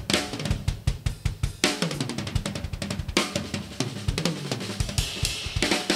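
Kyre Iris Series acoustic drum kit with ash shells (22-inch bass drum, 10- and 12-inch rack toms, 16-inch floor tom, 14-inch snare) played in a busy groove of snare, tom and bass drum strokes. A crash cymbal lands about every second and a half.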